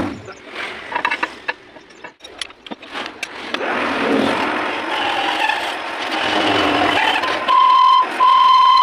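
Metal parts knocked and handled, then a metal lathe running with a steel rod spinning in its chuck. Near the end the turning tool meets the end of the rod and gives two loud, steady high squeals.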